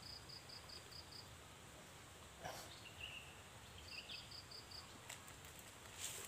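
Faint outdoor quiet with short trills of high, evenly spaced chirps, about five a second, twice. There is a short scuff about halfway through and another near the end.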